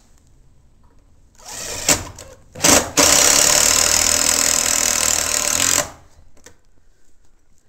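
Power drill driving a screw into wooden floor framing: two short bursts, then a steady run of about three seconds that stops suddenly.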